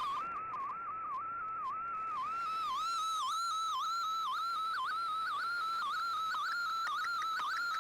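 A single whistling tone from a shortwave radio receiver, over a light hiss. It dips briefly in pitch two to three times a second.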